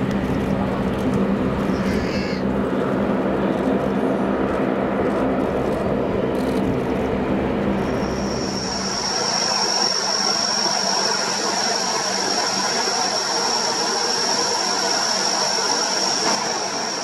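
Lockheed C-130H Hercules' four Allison T56 turboprop engines running as it taxis: a steady low propeller drone, and from about halfway a high, steady turbine whine over it.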